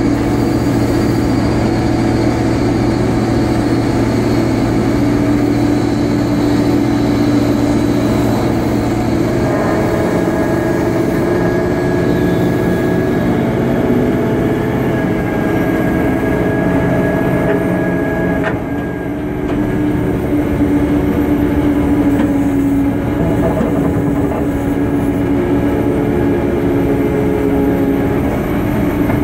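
Airbus A330-200 pushback heard from beside the nose gear and towbar: a loud, steady mechanical drone of the pushback tug and the aircraft. Several whining tones sit in it and change about ten seconds in, dip briefly around twenty seconds, then settle again.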